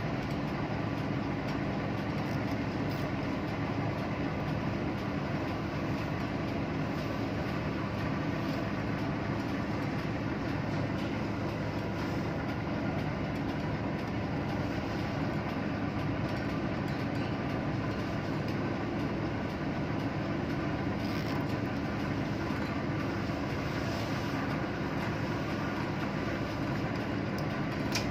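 Steady, unchanging drone of ship's engine-room machinery: a dense rumble with several steady hums layered in. A short click comes near the end.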